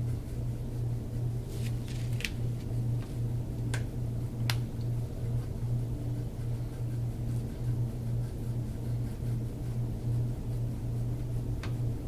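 A steady low mechanical hum, with a few faint clicks in the first few seconds.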